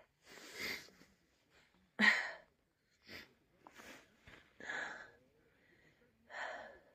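A hiker's heavy breathing: a short breathy rush every second or so, the breathing of someone winded from hiking at high altitude.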